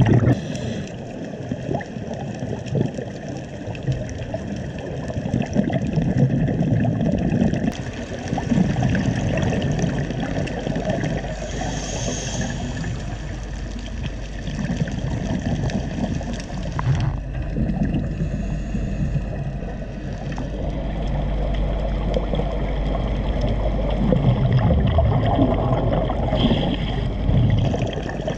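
Muffled underwater water noise picked up by a camera in a waterproof housing, an uneven low rumbling wash that swells and fades as the camera moves, with a couple of brief hissing surges about twelve seconds in and near the end.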